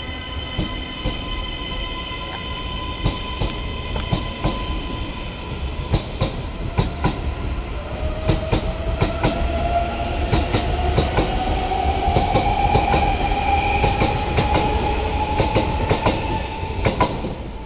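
Keisei AE-series Skyliner electric train pulling out of a station, its wheels clicking over rail joints more and more often as it gathers speed. From about eight seconds in, a whine rises steadily in pitch as the train accelerates.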